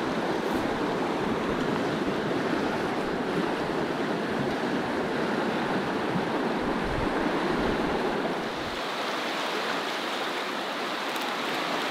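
Fast, rocky river rapids rushing steadily, with a low rumble underneath; about nine seconds in the low rumble cuts off and the rushing water sounds lighter.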